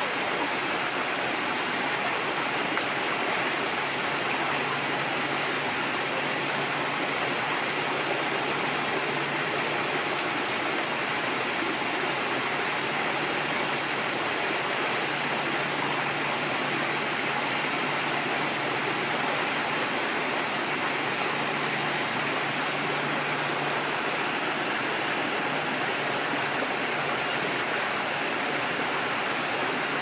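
Running water of a small aviary stream, a steady even rush with no change throughout, and a faint low hum under it for much of the time.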